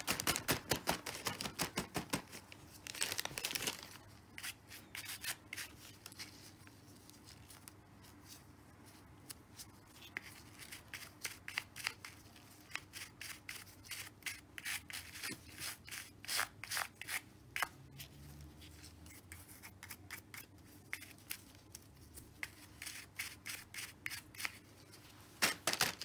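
Soft-bristled toothbrush scrubbing the dirt-caked pleated filter of a Tzumi IonVac handheld vacuum, brushing dust off in runs of quick strokes with short pauses between them.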